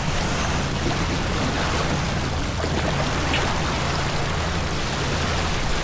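Water rushing along the hull of a sailing boat under way, with wind rumbling on the microphone; a steady, even noise.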